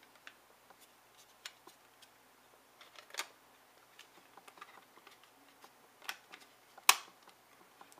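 Scattered light clicks and knocks of a laptop hard drive's USB enclosure, its metal drive tray and outer shell being handled and fitted back together. The sharpest click comes about seven seconds in.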